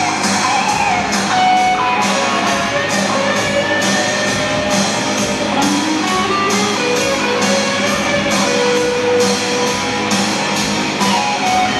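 Heavy metal band playing live in a large hall: distorted guitars carry a sustained, gliding lead line over a steady drum beat with regular cymbal hits.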